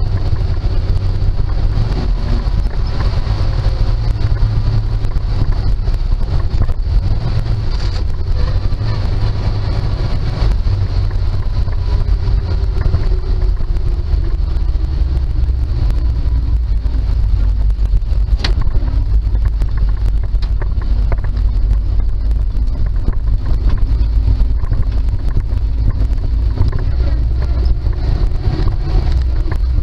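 1948 Dodge 1.5-ton truck's flathead six-cylinder engine and drivetrain running while the truck is driven and shifted through its unsynchronised gears, heard from inside the cab: a steady low rumble whose engine note falls and rises with the gear changes. A single sharp click comes about eighteen seconds in.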